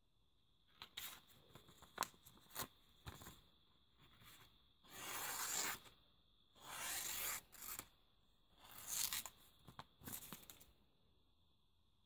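Freshly sharpened Victorinox Spartan pocketknife blade slicing through a sheet of paper: three hissing cuts about a second long each, with the paper crackling in the hands before and between them. It is a paper-cutting sharpness test after the 1000-grit whetstone.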